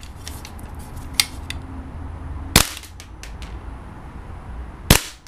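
WE MSK gas blowback airsoft rifle, running on green gas, firing two single shots a little over two seconds apart, each a sharp crack. A few lighter clicks come between the shots.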